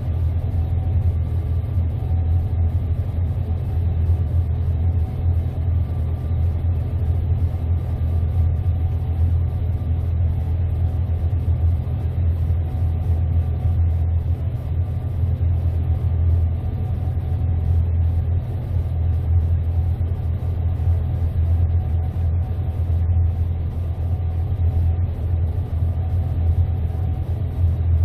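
Gleaner S98 combine harvester running steadily while cutting wheat: a constant low engine rumble with a faint steady whine above it.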